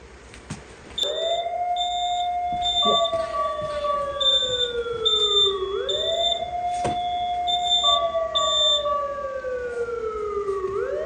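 An alarm starts about a second in: a slow wail that jumps up and glides down, repeating about every five seconds, with short high-pitched beeps sounding over it.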